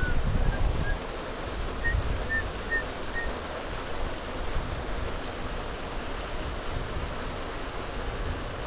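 Steady rushing of a small waterfall, canal water spilling into the creek, with low wind buffeting on the microphone that is strongest in the first second. A few short, high chirps come in the first three seconds.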